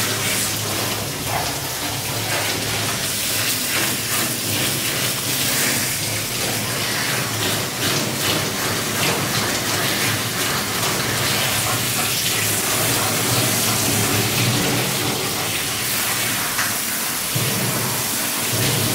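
Handheld shower head spraying steadily, water splashing onto a wet Rottweiler's coat and the stainless steel bathing tub.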